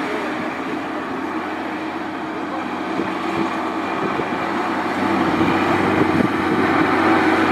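Tata goods truck's diesel engine running as the truck climbs through a hairpin bend, a steady drone that grows louder as it comes closer in the last few seconds.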